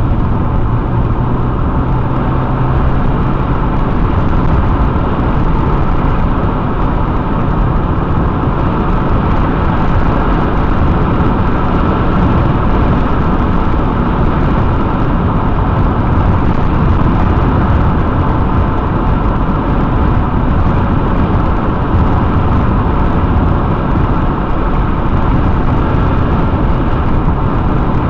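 Steady road and engine noise inside a car's cabin while driving, with a low engine hum clearest in the first few seconds.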